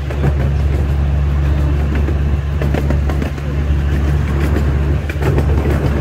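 Amusement-park ride train running along its track, heard from aboard: a steady low rumble with scattered faint clicks from the wheels on the rails.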